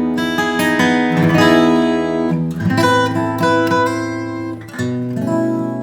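Alvarez MG75ce all-solid grand auditorium acoustic guitar, with a cedar top and rosewood back and sides, played in ringing chords with single notes picked over them. The chord changes about two and a half seconds in and again near the end.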